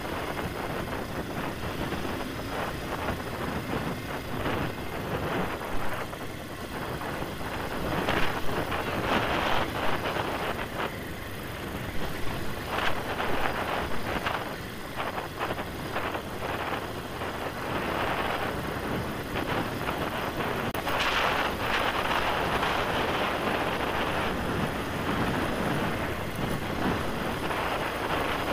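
Enduro motorcycle riding along a sandy dirt road: a steady rush of wind on the microphone over the bike's running and its tyres on the dirt. The noise surges unevenly louder about a third of the way in.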